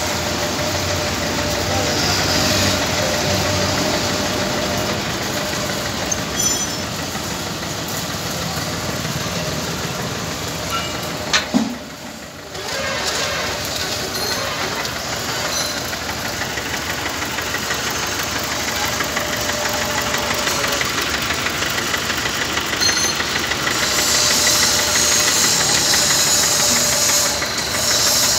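Tractor engine idling steadily. The sound briefly drops about twelve seconds in.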